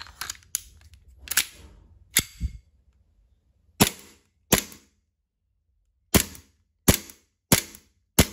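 Gas blowback airsoft 1911 pistol: a few clicks as the gas magazine is seated and the slide is racked, then six sharp shots at uneven spacing, each with the slide cycling. The shots are a test-fire showing that the freshly gassed magazine holds pressure.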